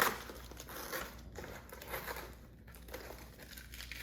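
Painter's tape being peeled and torn off foam padding around a bicycle's handlebars: irregular crinkling and tearing rustles, loudest at the start.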